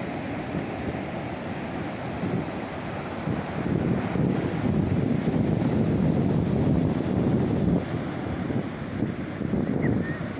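Heavy ocean surf breaking on the beach, with strong wind buffeting the microphone; the rushing grows louder about four seconds in.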